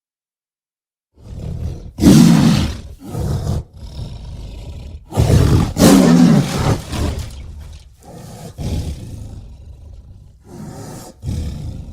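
Cartoon mongoose sound effect: a run of loud, harsh animal-like cries, each starting suddenly and trailing off, beginning about a second in.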